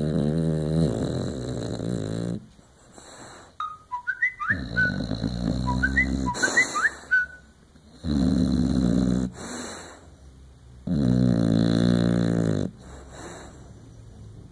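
English Bulldog snoring in its sleep: four long, loud rattling snores about three to four seconds apart, with quieter breaths between them and a few short, high whistling squeaks around the second snore. The heavy snoring is typical of the breed's short, flat-faced airway.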